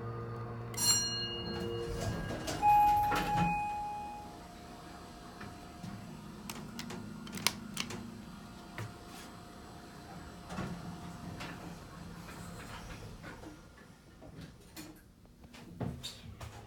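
Otis Series 1 hydraulic-era elevator in operation. A steady electronic tone stops about two seconds in, and the doors close with clicks and a brief beep. The car then travels down with a low running hum and scattered light clicks and knocks.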